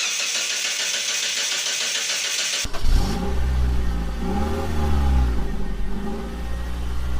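2006 Mitsubishi Lancer's 4G18 four-cylinder engine, after a steady high hiss, comes in suddenly about two and a half seconds in and runs with its revs rising and falling. The engine has an ignition misfire logged as fault code 44, ignition signal 1.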